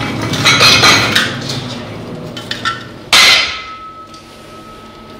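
Race-track noise of engines fades, then about three seconds in a single sharp metal clang as metal strikes a sooty car exhaust silencer, leaving a clear ringing tone that carries on.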